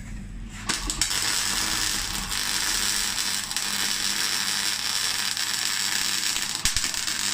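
MIG welder arc crackling steadily as a bead is laid on a steel plate. It starts about a second in and cuts off suddenly near the end.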